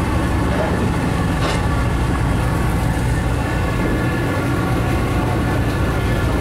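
A large fishing boat's engine running with a steady, unbroken drone.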